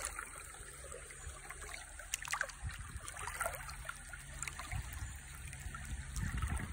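Shallow rocky creek water trickling and rippling, with a few faint small splashes from a fish held in the current.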